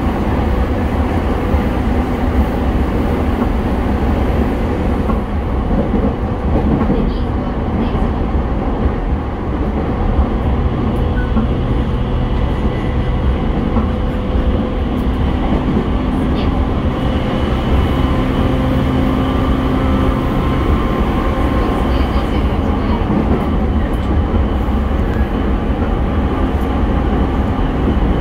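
Running noise inside a JR East E217 series electric train's motor car: a steady, loud rumble of wheels on the rails, with faint humming tones that come and go.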